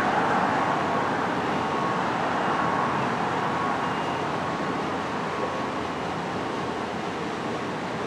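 Steady wash of road traffic from cars passing on a multi-lane road.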